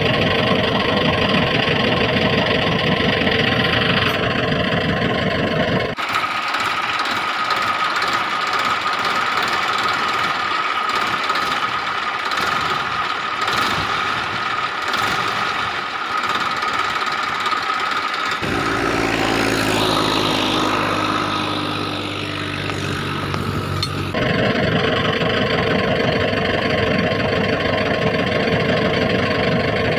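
Engine running and idling, laid over the picture as a sound effect rather than made by the hand-pushed toys. Its character changes abruptly about six seconds in, again near eighteen seconds and again near twenty-four seconds.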